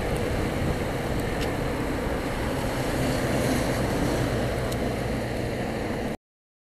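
Motorcycle ride: steady wind rush over the microphone, engine hum and tyre noise on a wet road, cutting off abruptly near the end.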